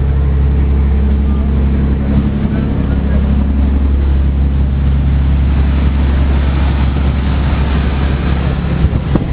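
Amazon passenger riverboat's engine running steadily, a deep even drone with a low hum, heard on board; a brief knock near the end.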